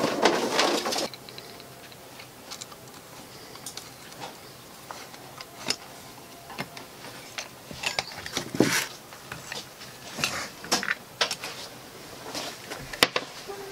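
Remington 700 rifle being taken out of its wooden stock: a screwdriver turning out the action screws, with scattered small metal clicks and knocks as the parts are handled. A brief rustle at the start and a sharp click near the end.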